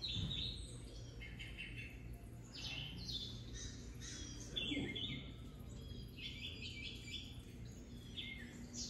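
Recorded birds chirping and tweeting, played through a television's speakers: a steady string of short chirps and calls.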